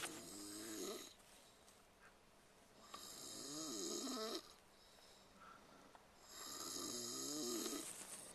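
A sleeping person snoring: three long snores about three seconds apart, each with a wavering pitch and a breathy hiss.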